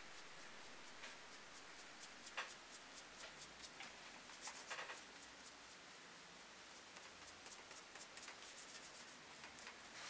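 Faint scratchy rubbing and scattered light clicks of a glue brush being worked by hand, with a couple of slightly louder scrapes about two and a half and four and a half seconds in.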